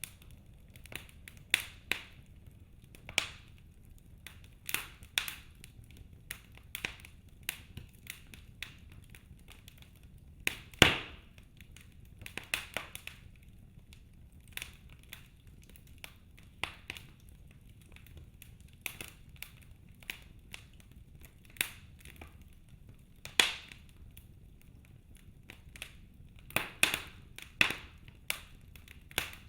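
Wood fire crackling in a fireplace: irregular pops and snaps over a low hiss, with a few sharper cracks about eleven and twenty-three seconds in and a quick run of pops near the end.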